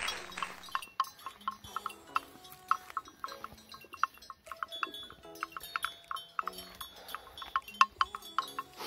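Cattle grazing close by, cropping grass in short, sharp, irregular snaps that come several to a second at times. A few faint brief low tones sound in the background.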